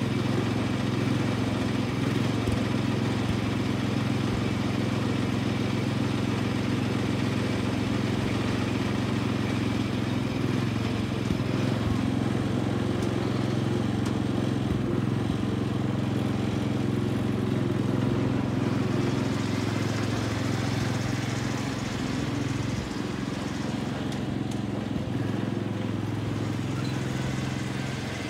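Garden tractor engine running steadily, turning a little quieter in the last few seconds as the tractor moves off.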